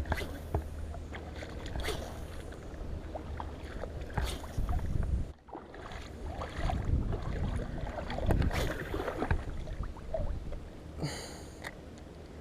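Outdoor action-camera sound: a steady low wind rumble on the microphone with scattered clicks and knocks from handling. It drops out briefly about five seconds in.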